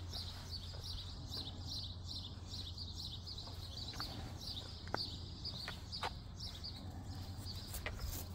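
Small birds chirping in quick, repeated high notes over a steady low hum, with a few faint clicks.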